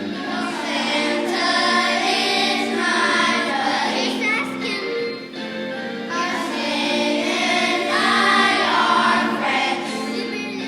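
Elementary-school children's choir singing, with a short break between phrases about five seconds in.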